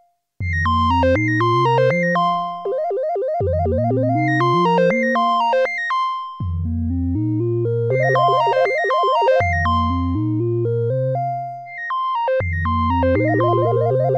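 Vermona Perfourmer MkII analog synthesizer playing a sequenced minimalist pattern: stepping bass notes under short, plucked higher notes. The pattern repeats in phrases of a few seconds, each breaking off briefly before the next begins.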